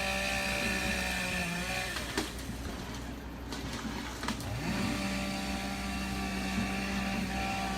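Two-stroke chainsaw revved up to full speed and held for about a second and a half, then dropping back. It is revved again about five seconds in and held steady at high speed.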